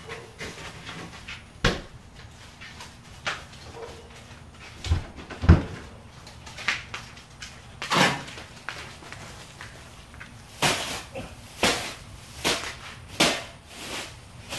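Irregular knocks and clatters, about ten in all and spaced unevenly, some sharp and some dull. The loudest is a dull thump about five and a half seconds in.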